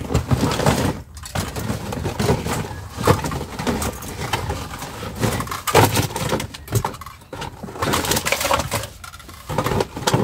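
Rubbish in a dumpster being rummaged with a hand-held grabber tool: plastic bags and packaging rustling and crinkling irregularly, with scattered knocks.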